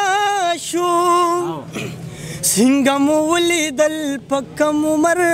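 A man singing a Pashto tappa in long, wavering held notes. About halfway through the voice slides down and softens, then climbs back up into high held notes.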